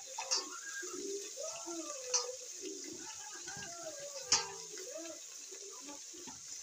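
Stainless steel colander clinking as green chillies are handled in it: three short sharp taps, the last about four seconds in the loudest, over faint wavering background voices.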